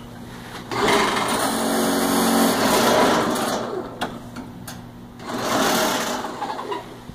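A 110-volt electric hydraulic pump runs in two bursts, about three and a half seconds and then about a second and a half, as its push-button control is pressed. It drives the 10-ton ram down to press the herbs.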